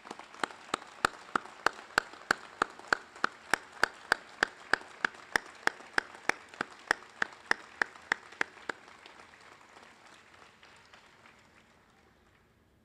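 Crowd applauding, with one person's loud, evenly spaced claps close by, about three a second, standing out over the first eight or nine seconds; the applause then fades away.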